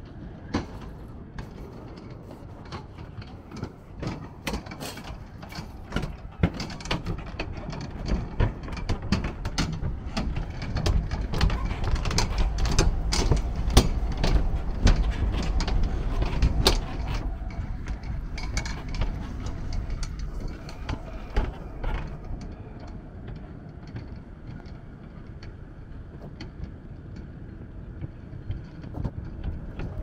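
Low rumble of a passing vehicle, building to its loudest about halfway through and easing off after, with many sharp clicks and knocks.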